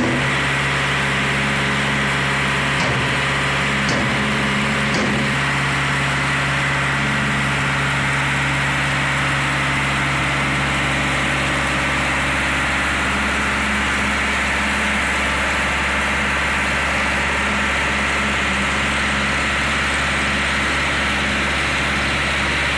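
Engine of a reversible concrete mixer with pump running steadily at a constant speed, with three short knocks about a second apart near the start.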